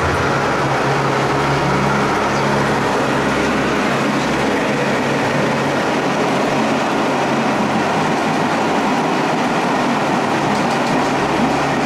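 Loud, steady drone of a small turboprop plane's engines and propellers heard from inside the cabin, a dense rushing noise over a low hum that wavers slightly in pitch.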